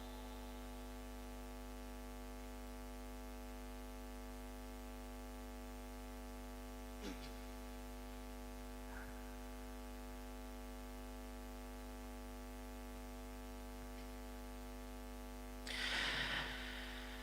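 Steady electrical mains hum with many stacked overtones from an amplified sound system, heard at a low level while the reciter pauses. A brief, faint noisy sound comes near the end.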